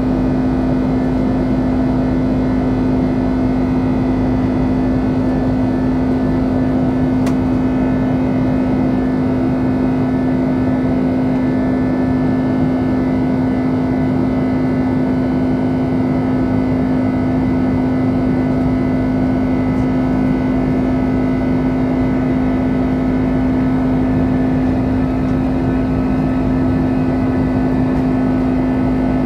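Cabin noise of an Airbus A330-200 in flight, heard at a window seat beside the wing: the steady sound of its Pratt & Whitney PW4000 turbofan engines and the airflow, with a strong steady low hum and fainter higher tones running through it.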